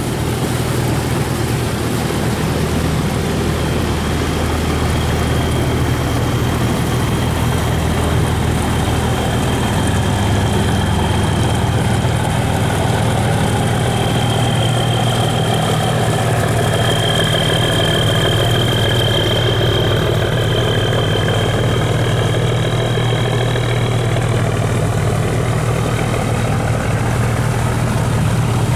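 Diesel engine of a steel river cargo barge running steadily as it passes close by, a deep even hum, with a thin high whine that builds up and is strongest about halfway through.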